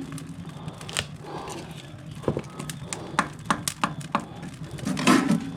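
Waste-wood fire crackling in a smoker's firebox, with irregular sharp pops.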